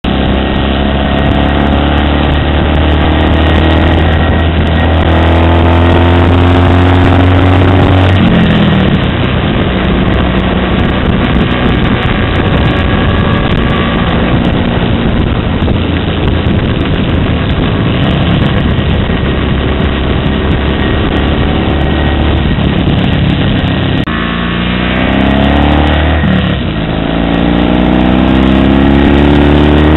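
Norton Commando 850's parallel-twin engine pulling hard through the gears. It rises in pitch, drops at each of several gear changes, then climbs again. Heavy wind rush over the microphone runs throughout and is strongest in the middle stretch.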